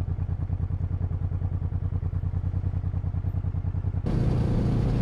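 Honda Transalp XL700V's V-twin engine running at low revs with an even, steady pulse as the bike rolls slowly, picked up by a helmet microphone. About four seconds in the sound changes abruptly to a louder, fuller mix of engine and rushing air.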